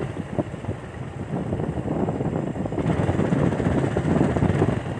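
Motorcycle engine running while riding along a road, with wind buffeting the microphone as a fluttering low rumble.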